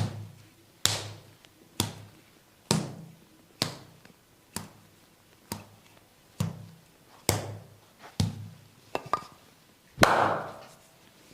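Percussive massage strikes on a person's body, sharp knocking slaps landing about once a second with a dull thud under each, a quick double hit near the end followed by one louder, longer hit.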